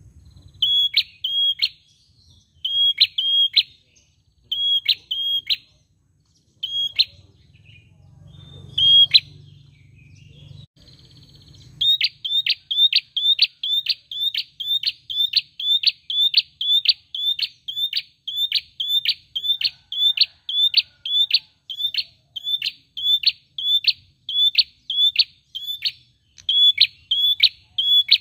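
A tailorbird (prenjak) calling with sharp, high, short notes. At first they come in clusters of two or three every couple of seconds. About twelve seconds in they become a fast, unbroken run of roughly two to three notes a second.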